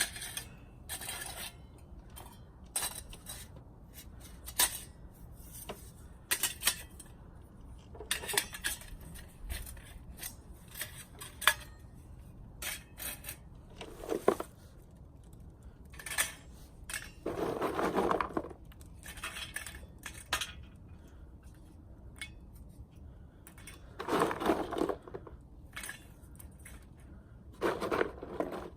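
Metal camp gear being handled: a scattered series of light clinks and knocks, with a few longer scraping rasps about two-thirds of the way in and near the end.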